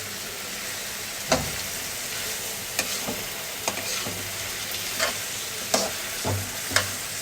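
Onions sizzling as they fry in hot oil in a pan, stirred with a utensil that knocks and scrapes against the pan about seven times at irregular intervals.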